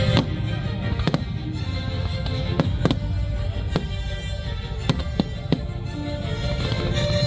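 Aerial firework shells bursting in a fireworks display, about eight sharp bangs at uneven intervals, with music playing throughout.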